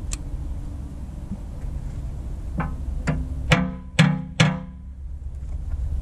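Hammer blows on a steel pin-driving tool, tapping a backhoe bucket tooth's retaining pin in to lock the tooth onto its shank. Five metallic strikes with a ringing tail, roughly half a second apart, the last three the loudest.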